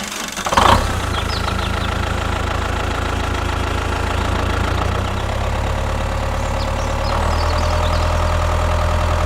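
An engine running steadily at idle, with a short louder burst about half a second in and a slight change in its note about seven seconds in.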